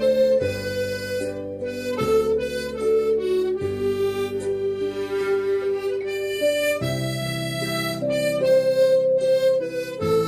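Tremolo harmonica playing a slow melody of long held notes over a backing accompaniment whose chords change every couple of seconds.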